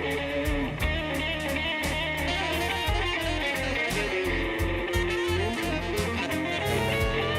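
A band plays an instrumental passage of a slow blues song. A guitar leads with lines that bend in pitch, over bass and drums.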